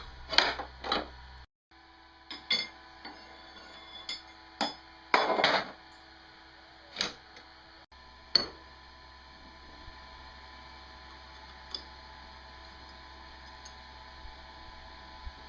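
Irregular knocks and clicks of a part being pushed and worked into place by hand in the bulldozer build, loudest in the first half. After that comes a steady faint hum with a few light ticks.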